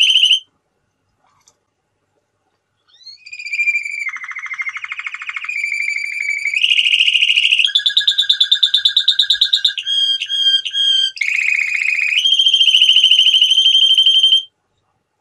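Male domestic canary singing. A phrase ends just after the start, then after a pause of about two and a half seconds comes a long song of rapid trills, each held at one pitch before it jumps to another. It stops about a second before the end.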